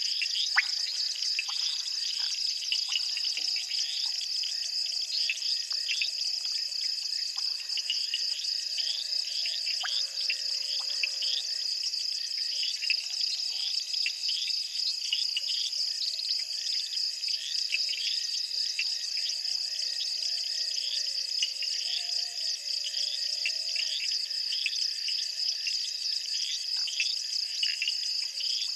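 Night chorus of insects: a steady high trilling with many short chirps over it, going on without a break. A faint low tone wavers and drifts in pitch through the middle.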